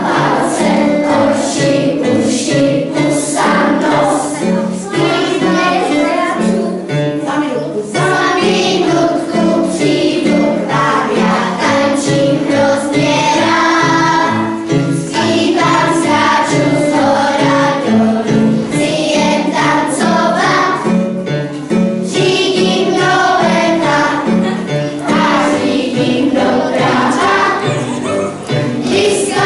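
Children's choir singing a song in unison, accompanied by an electronic keyboard playing a bass line with a steady beat.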